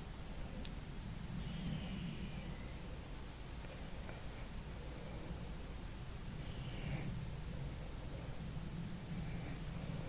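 Steady, high-pitched buzz of singing insects, unbroken, with a low rumble underneath.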